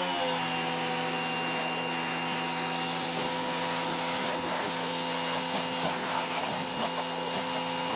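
Giraffe Tools Grandfalls electric pressure washer running while spraying, its motor and pump giving a steady whine over the hiss of the water jet.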